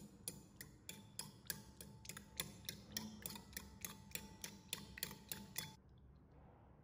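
Metal fork beating raw eggs in a ceramic bowl, the tines clicking against the bowl in a steady rhythm of about three strokes a second. The clicking stops about a second before the end.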